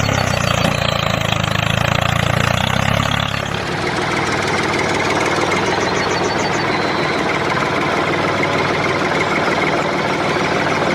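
A small motorised model machine running steadily; about three and a half seconds in its sound changes from a low hum to a thinner, noisier running.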